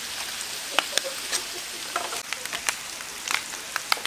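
Chopped pork offal sizzling on a flat griddle, a steady hiss with frequent sharp crackles and pops.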